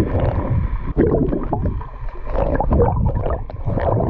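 Muffled, uneven gurgling and rushing of river water picked up by a camera held underwater, with a few sharp knocks and bubbling.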